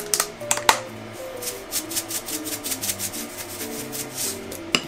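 Quick soft scraping and ticking sounds of hand food prep: tube garlic paste squeezed from a plastic tube, then a salt-and-pepper shaker shaken over a glass bowl near the end. Gentle background music plays underneath.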